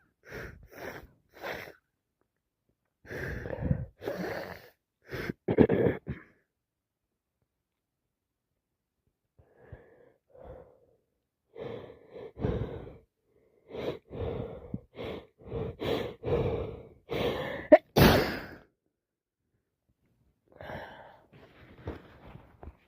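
Someone with a heavy head cold making repeated short sniffs and gasping breaths, building to one loud sneeze about 18 seconds in, followed by more sniffling.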